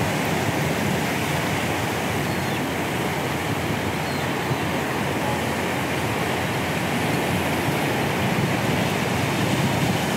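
Ocean surf breaking and washing over a rocky shore: a steady rush of white water.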